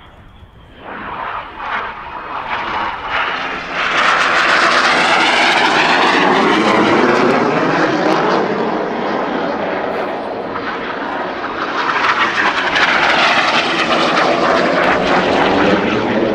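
BAE Hawk T1 jet's Adour turbofan on a close, low flypast. The jet noise builds about a second in, stays loud for several seconds with a sweeping, shifting pitch as the jet passes, dips briefly, then swells again near the end.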